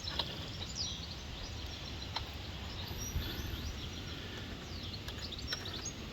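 Steady outdoor background noise with birds chirping now and then, and a few faint clicks, about three in all.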